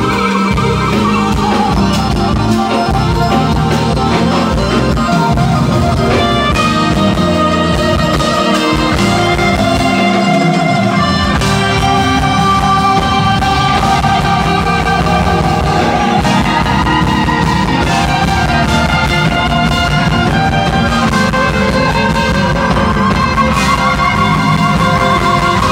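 Live jazz-fusion band playing loud and steady, with electric bass, electric guitar, keyboards, trumpet and drums together.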